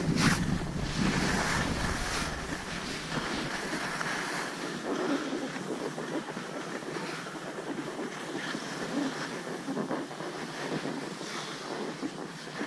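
Skis sliding and scraping over packed snow at slow speed, a steady hiss. Wind rumbles on the camera's microphone in the first couple of seconds, then eases.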